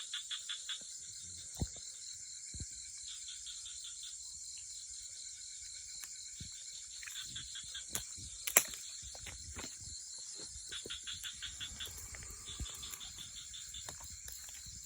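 Night chorus of insects trilling steadily and high, with frogs giving short rapid pulsed calls that recur every few seconds. A few sharp clicks or knocks sound in between, the loudest about halfway through.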